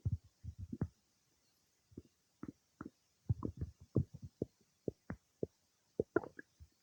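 Human stomach gurgling while digesting food: a series of short, irregular low gurgles and pops in clusters, with brief silent gaps around two and three seconds in.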